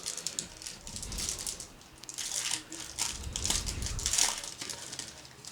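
Foil wrapper of a baseball trading-card pack being torn open and crumpled, an irregular crinkling that comes in several bursts.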